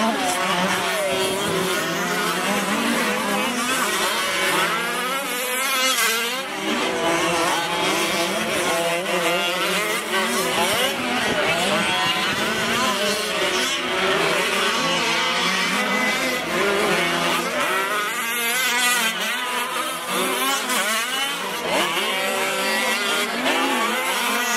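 Several gas-powered 1/5-scale Losi 5ive-T RC trucks racing, their small two-stroke engines revving up and down over one another in constantly wavering, overlapping whines.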